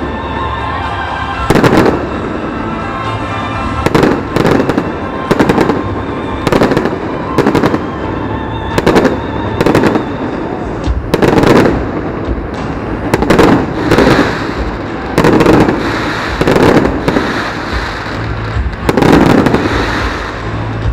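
Aerial fireworks shells bursting in quick succession, a loud bang about every second, some in close pairs, with rumbling echoes between them.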